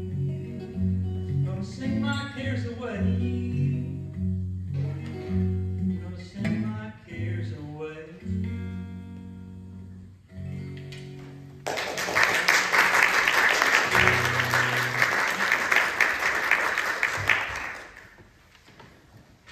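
Acoustic guitar playing the last bars of a song, then audience applause starting suddenly about twelve seconds in and dying away about six seconds later.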